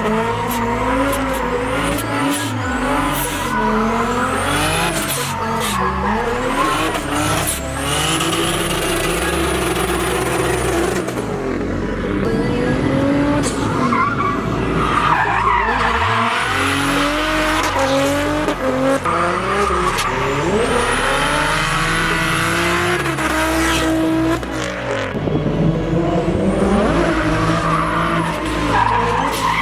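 A 1JZ-swapped Lexus IS300 being driven hard: the engine revs rise and fall over and over, with tyres squealing and skidding.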